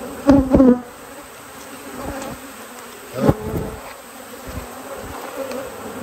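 Agitated honeybees buzzing in a dense cloud around an open hive as a brood frame is worked. Bees pass louder and closer about half a second in and again a little after three seconds.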